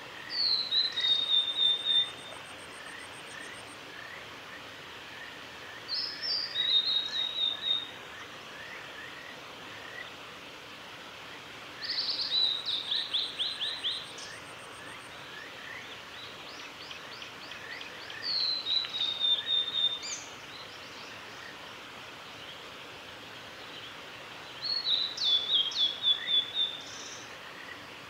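Male blue-and-white flycatcher singing: five phrases about six seconds apart, each about two seconds long, a clear falling whistle followed by a quick run of short repeated notes.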